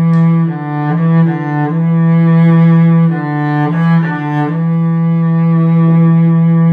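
Solo cello bowed in a slow, calm melody, a few shorter notes between long held ones.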